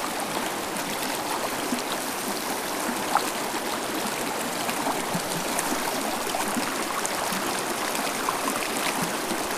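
Small mountain river rushing steadily over rocks.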